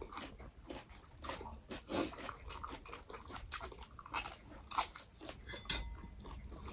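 A person eating close to the microphone: irregular wet chewing, biting and crunching sounds, with one sharper crack near the end.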